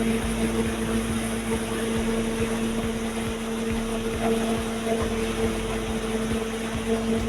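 Road-paving machinery engine running steadily, a constant hum over a low rumble.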